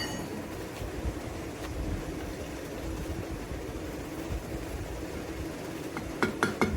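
A forge running with a steady low rumble and hum. About six seconds in, a quick run of light hammer taps on hot iron begins.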